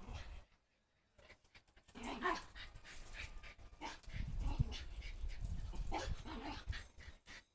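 A dog excitedly whining and yelping in short calls, about two seconds in and again about six seconds in, amid scattered clicks and low thumps.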